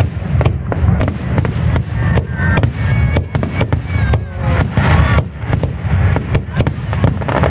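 Aerial firework shells bursting in a rapid barrage: many loud bangs in quick succession, several a second, with crackling between them.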